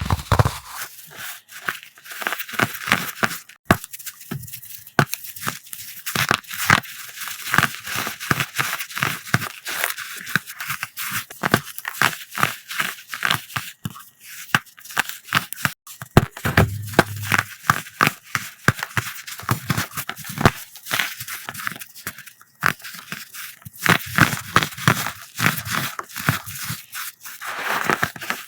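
Brittle pressed powder blocks being crushed by hand: dense, irregular crunching and crackling, many sharp crackles in quick succession, with a slight squeak.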